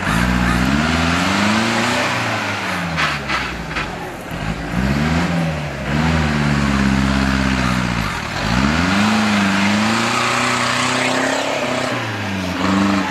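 Off-road jeep engine revving hard, its pitch climbing and dropping several times, with one deep drop about eight seconds in.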